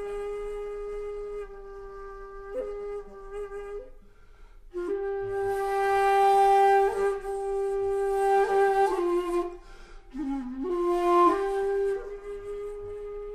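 Shakuhachi (Japanese end-blown bamboo flute) playing solo in long held notes. After a short pause for breath about four seconds in, a louder note swells with a strong rush of breath, and the line dips to lower notes before rising into a second breathy swell and a final held note.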